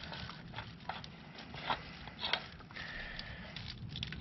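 Plastic bag crinkling, with scattered light clicks and taps from hands working around the oil filter housing in the engine bay.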